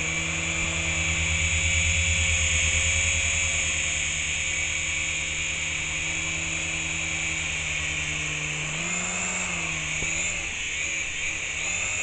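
Small RC helicopter in flight: a steady high motor whine over the fast beat of its rotors. From near the end the pitch wavers up and down several times as the rotor speed changes.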